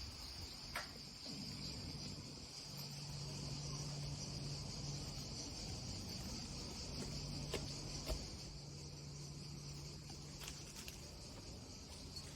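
Crickets chirping in a steady high-pitched trill, with a faint low hum that comes and goes and a few light clicks.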